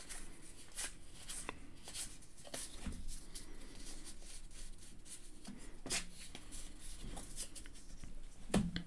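Cardboard trading cards being thumbed off a hand-held stack one after another: soft slides and light, irregular ticks as each card passes over the next, a little louder near the end.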